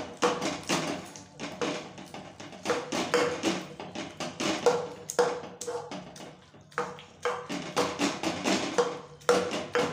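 A stainless steel tumbler is being pressed down again and again to mash cooked spinach saag in a metal kadhai. It strikes the pan bottom about twice a second, each knock with a short metallic ring, with a brief pause a little past the middle.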